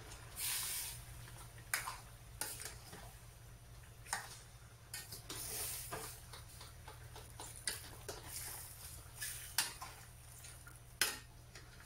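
Metal spoon stirring chicken pieces in a stainless steel pan, clinking and scraping against the pan about half a dozen times, with patches of sizzling hiss as the meat is turned over the heat.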